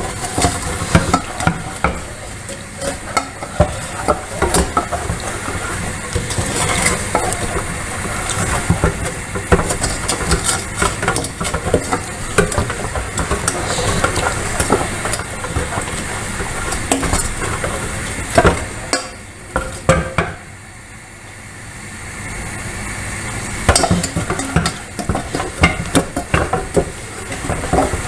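A spoon stirring and scraping sugar caramelizing in a pan: a dense run of quick, irregular scrapes and clicks. The stirring stops for about three seconds roughly two-thirds of the way through, then starts again.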